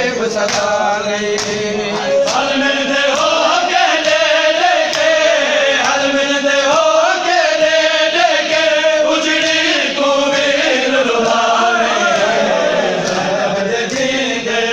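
A group of men chanting a noha, a Shia mourning lament, together in unison, with the slaps of hands beating on chests (matam) coming at an uneven beat.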